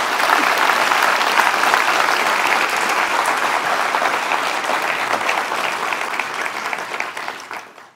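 Audience applauding: a dense crowd of hands clapping that fades away near the end.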